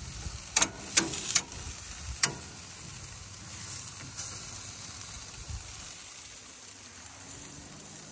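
Food sizzling on a gas grill. Metal tongs click sharply against a stainless steel grill basket four times in the first couple of seconds as onions and mushrooms are stirred.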